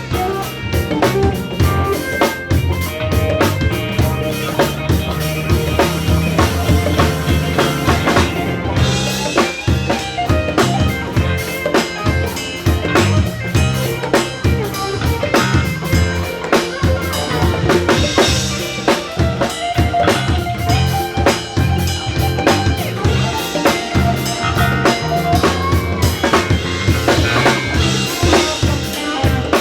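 Live band playing, with the drum kit to the fore: bass drum, snare and rimshots keeping a busy groove over sustained low notes.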